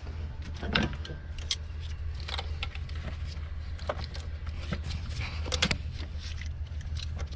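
Scattered small clicks, taps and rattles of hands and a tool working a hose off an intake pipe in an engine bay, over a steady low hum.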